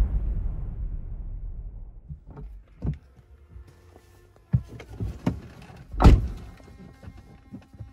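The intro music dies away, then a person gets into a car's back seat with a series of knocks and clicks, and the car door shuts with a thud about six seconds in.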